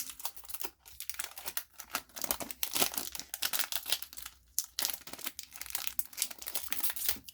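Wrapper of a 2021-22 Upper Deck hockey card pack crinkling and tearing as it is ripped open by hand, in quick irregular rustles with a couple of short pauses.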